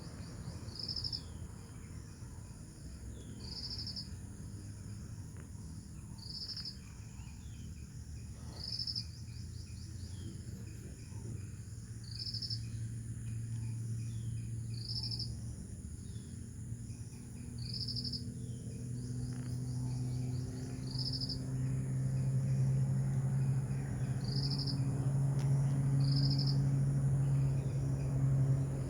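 Insects chirping outdoors: short pulsed high-pitched chirps repeating every two to three seconds over a steady, very high-pitched insect drone. A low hum grows louder through the second half.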